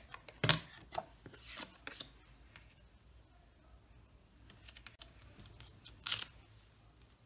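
Quiet paper-crafting handling sounds: a few brief taps and rustles of cardstock layers being set down and pressed together. About six seconds in comes a short, louder rip as a foam adhesive dimensional is peeled off its backing sheet.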